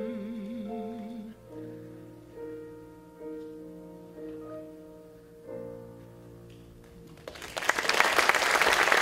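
A singer's last held note, with a wide vibrato, ends about a second in. Piano closing chords follow, each struck and left to ring and fade. Loud audience applause breaks out a little after seven seconds in.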